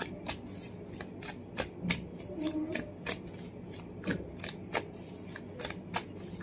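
A tarot deck being shuffled by hand: an irregular run of sharp card snaps and clicks, about three or four a second.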